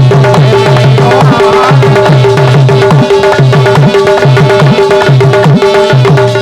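Instrumental folk music: a hand drum plays quick repeated strokes whose low notes bend in pitch, over a held drone note.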